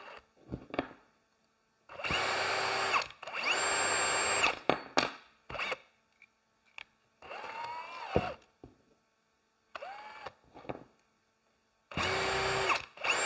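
Electric drill run in five short bursts, the motor whining steadily at full speed in the first two and the last. Two quieter bursts in the middle have the whine sliding in pitch and dying away as the trigger is eased. A few light clicks and knocks come between the bursts.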